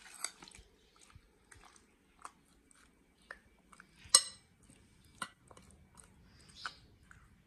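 Scattered clinks and light knocks of a metal spoon and ceramic dishes being handled, with one sharp, ringing clink about four seconds in.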